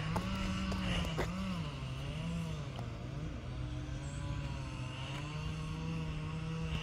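An engine running steadily, its pitch wandering up and down a little, with a few sharp clicks near the start.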